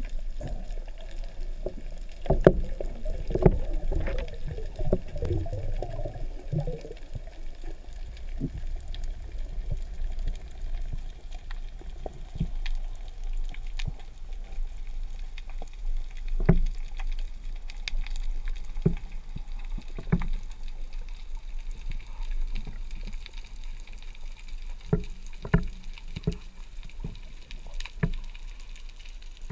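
Underwater sound picked up through an action camera's waterproof housing: a steady low muffled rumble with scattered sharp clicks and knocks, busier in the first several seconds.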